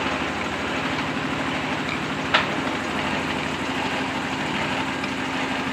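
A 24 hp diesel engine running steadily under load, driving a clay extruder's feed roller and gears. A single sharp knock about two seconds in.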